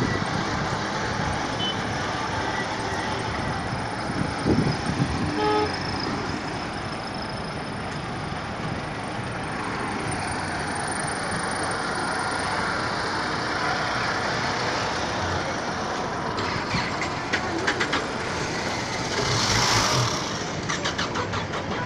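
Busy street traffic: a steady rumble and hiss of vehicles around a dirt road, with a brief horn toot about five seconds in and a louder rush near the end.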